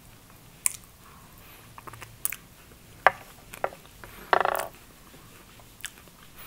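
Metal spoon clicking against a glass dessert coupe as curd mousse is scooped and eaten: a handful of sharp clicks, the loudest about three seconds in. A short pitched sound follows at about four seconds.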